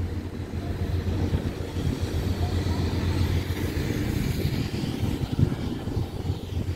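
Steady low hum and rumble of a ship's machinery running while moored alongside.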